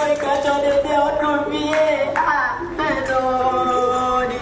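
Singing: a voice holding long, steady notes that change pitch every second or so.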